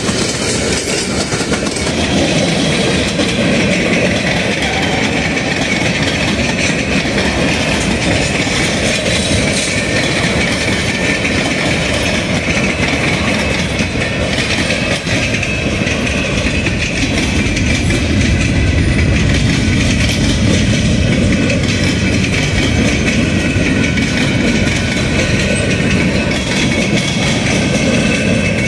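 Freight train cars rolling past close by at a steady speed, wheels clattering over the rails. Tank cars, boxcars and centerbeam flatcars go by one after another.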